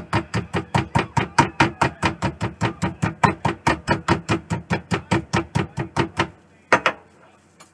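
Meat tenderizer mallet pounding a beef cube steak on a wooden cutting board, rapid even blows at about six a second. The pounding stops about six seconds in, followed by one last single blow.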